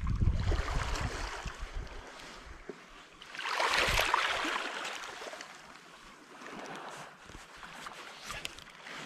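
Wind buffets the microphone with a low rumble for the first two seconds. About three and a half seconds in, a rush of sea water swells and fades, then softer lapping with small clicks follows.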